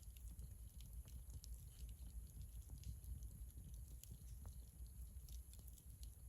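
Faint, scattered crackling of a wood campfire over a low steady rumble.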